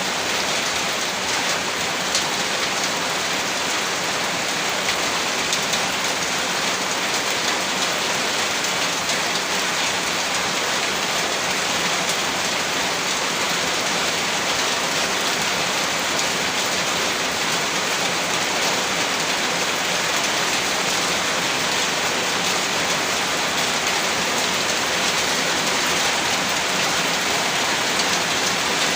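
Steady rain falling: a dense, even hiss made of many small drop hits, unchanging throughout.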